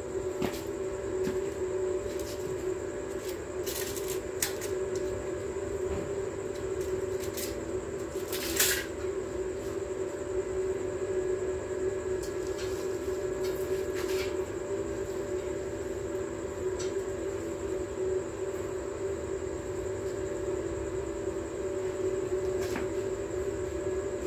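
Electric arc welding on steel reinforcing bar: the arc crackling and buzzing steadily without a break, with a few sharper pops from spatter.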